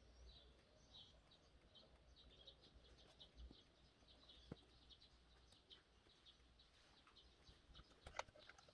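Near silence, with small birds chirping faintly in the background and a couple of light clicks.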